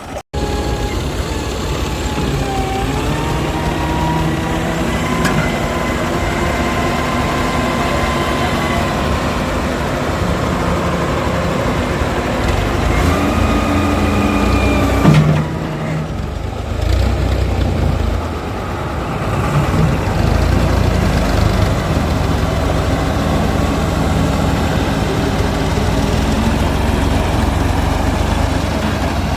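Heavy diesel machinery engine running under load. Its pitch rises about two seconds in and again before a peak about halfway through, then it drops back briefly and keeps running.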